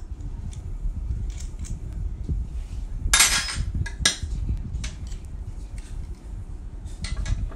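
Metal hand tools clinking and clattering against each other and the hard counter as a wrench is picked up, with the loudest clatter about three seconds in and a sharp clink about a second later. Light clicks from the metal tap parts are being handled between them.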